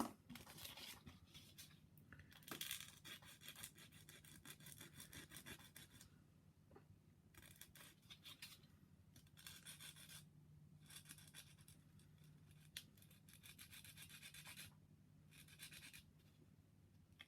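Sanding stick rubbed back and forth against a plastic model-kit part, faint, in about six bouts of quick scraping strokes with short pauses between them. This is the sound of a deliberately long gate nub being sanded down flush.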